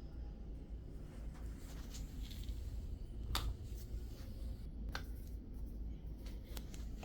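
A few sharp clicks from wrist and hand joints popping under chiropractic adjustment, the loudest about three seconds in, among quiet handling rustle over a low steady hum.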